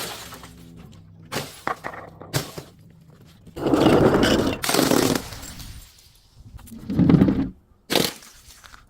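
Glass bottles and other objects being broken and crushed: a sharp smash at the start, a few short cracks, then two long loud crunching stretches and a final sharp crack near the end. Faint background music with low steady tones in the first seconds.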